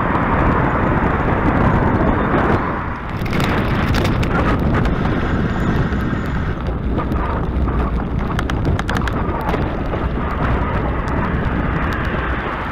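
Wind rumbling and buffeting on the microphone while cycling. From about three seconds in, scattered clicks and crackles come through the rush of wind.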